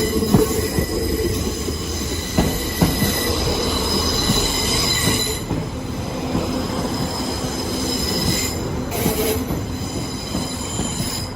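CrossCountry diesel multiple unit drawing into a station platform. A high, multi-toned wheel-and-brake squeal fades out about halfway through, leaving a low rumble with a few knocks from the wheels.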